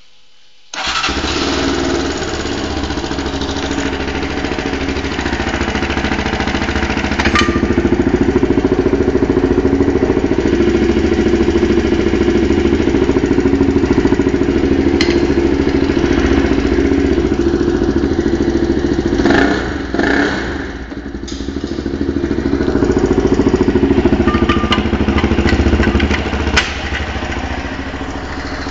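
Daelim Roadwin motorcycle engine starting suddenly about a second in, then running through its exhaust silencer, getting louder a few seconds later, dropping briefly past the middle and picking up again, with a sharp click near the end.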